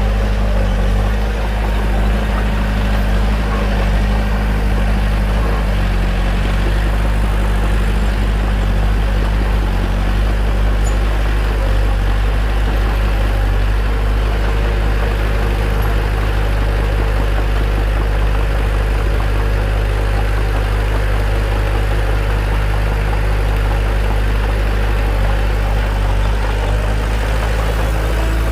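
Bulldozer's diesel engine running steadily, a deep even drone with little change in pitch or level.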